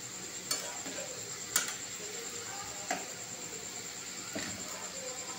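Pitha dumplings deep-frying in hot oil in a wok, a steady sizzle, with a metal utensil clicking against the pan a few times as they are turned.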